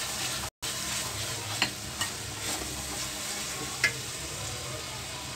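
Onion-and-tomato masala sizzling in oil in a black iron karahi while a silicone spatula stirs and scrapes it, with a few sharp taps of the spatula on the pan. The masala is fried until the oil has separated, with fried onions just stirred in. The sound cuts out briefly about half a second in.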